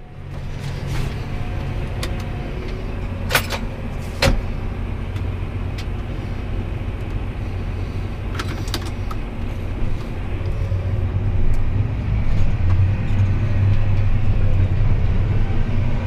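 John Deere tractor's diesel engine running, heard from inside the cab, growing louder about eleven seconds in as the tractor pulls away. Two sharp clicks come a second apart early on.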